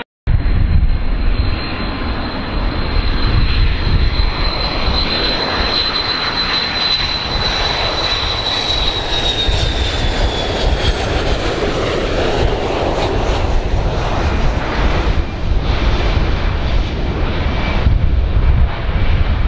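Large airplane's engines running with a steady rumble and a high whine; the whine slides slightly lower about ten seconds in.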